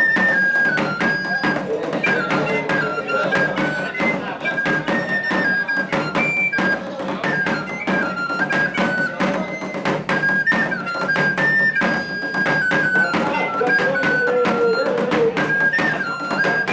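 Traditional flute-and-drum music: a small end-blown flute plays a high melody of short, repeated phrases over quick, steady strokes on a double-headed stick-beaten drum.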